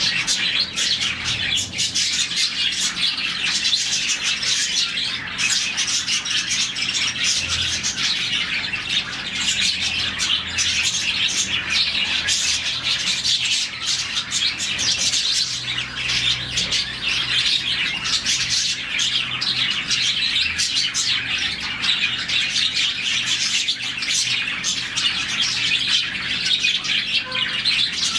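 A colony of budgerigars, around forty birds, chirping and chattering together in a dense, unbroken twitter.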